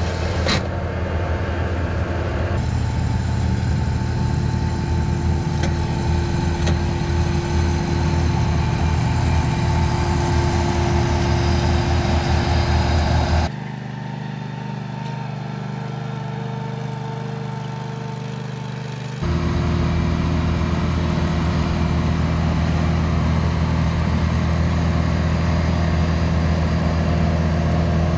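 Bobcat T190 compact track loader's diesel engine running steadily as it works a soil conditioner attachment across infield dirt. About halfway through, the sound drops for several seconds to a quieter, more distant engine, then the close, loud engine returns.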